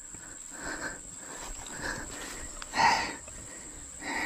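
Steady high-pitched insect drone, with a few soft noises and one louder, short noisy burst about three seconds in.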